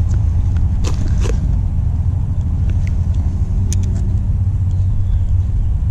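A steady, loud low rumble, with a couple of sharp clicks about a second in.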